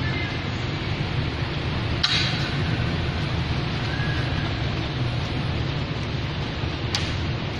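Steady background noise, a low hum with hiss and no speech, broken by a sharp click about two seconds in and another near the end.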